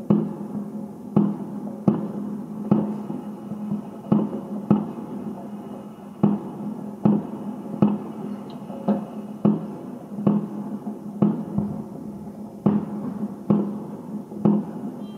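Aerial fireworks shells bursting, a sharp bang roughly every second, each with an echoing tail.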